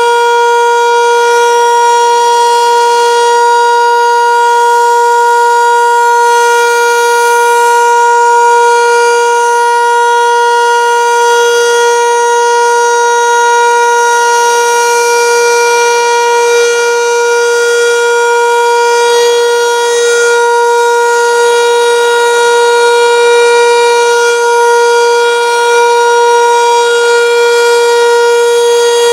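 Landert MSL-6 motor siren sounding Austria's 'Warnung' civil-protection signal: a loud, unbroken tone held at one steady pitch, the signal's three-minute continuous tone.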